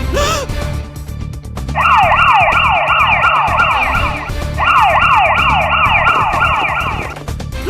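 Police siren wailing in fast falling sweeps, about three a second, in two runs with a short break between them, over background music with a steady low beat.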